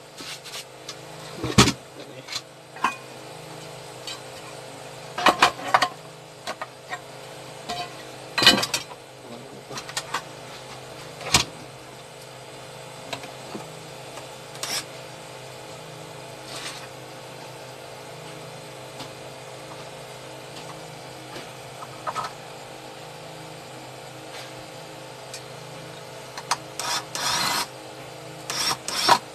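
Knocks and clicks of a metal inverter case and tools being handled on a workbench over a steady hum. Near the end, an electric screwdriver runs in short spurts, driving screws into the inverter's front panel.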